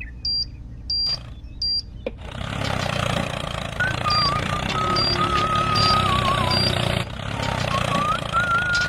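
A toy time-bomb timer beeping, one short high beep roughly every two-thirds of a second. About two seconds in, a click is followed by a homemade DC-motor mini tractor running steadily, with a wavering whistle-like tone over it and the beeps carrying on faintly.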